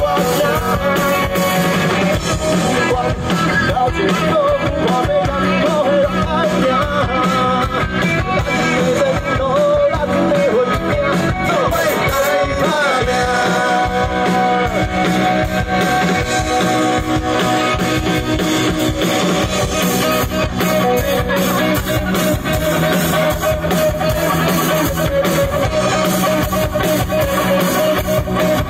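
A live rock band playing amplified electric guitars, bass guitar and drum kit, with a man singing into a microphone.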